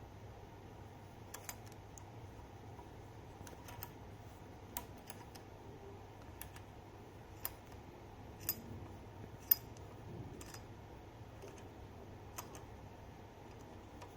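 Faint, sparse metallic clicks and taps, roughly one a second, as a bicycle crank removal tool is screwed in and turned to pull the crank off.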